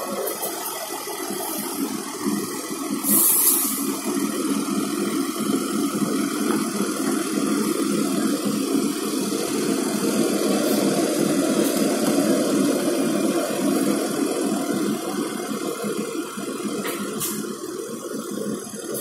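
Fendt tractor's diesel engine running steadily, with a short hiss about three seconds in.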